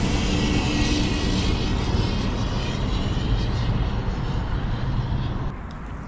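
Airplane passing overhead: a loud, steady rushing engine noise that drops off about five and a half seconds in.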